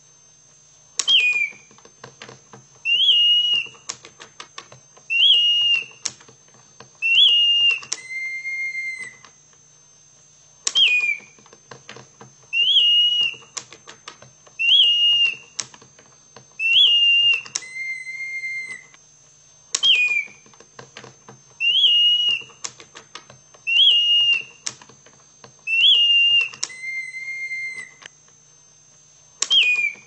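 Hand-cranked mechanical singing bird automaton: its bellows-blown whistle sounds a short chirping note about every two seconds. Every fourth or fifth note is a lower held note as a lever shifts the pitch, and the phrase repeats about every ten seconds. The wooden cams and levers click between notes.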